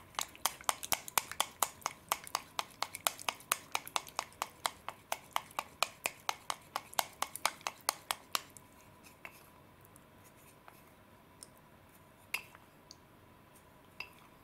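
Wooden chopsticks stirring orange slime in a clear bowl, clicking against the bowl about four to five times a second. The stirring stops about eight seconds in, leaving a few scattered taps.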